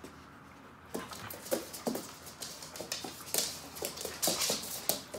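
Two Weimaraners play-wrestling. About a second in, a fast run of short dog vocal sounds mixed with clicks and scuffling begins.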